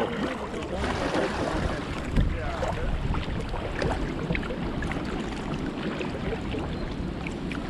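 Wind buffeting the microphone in a steady low rumble, with water lapping against a kayak hull and scattered small splashes and drips from paddling.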